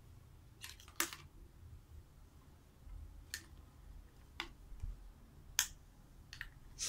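Plastic toy food pieces clicking and knocking together as they are handled, with about seven sharp clicks spaced irregularly and the loudest about a second in.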